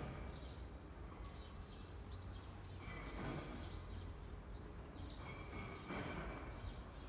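Faint street ambience: small birds chirping on and off over a low, steady rumble.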